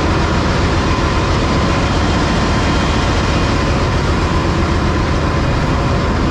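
Ship's engine-room machinery with its diesel generator sets running: a loud, steady din with a low hum and a thin, steady high tone.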